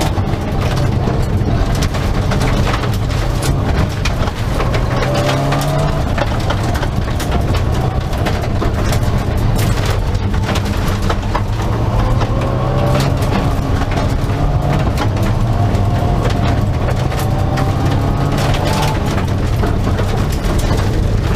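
Mitsubishi Lancer Evo rally car's turbocharged four-cylinder engine, heard from inside the cabin, revving hard with its pitch climbing again and again as it pulls through the gears. Gravel crunches under the tyres and stones clatter against the underbody.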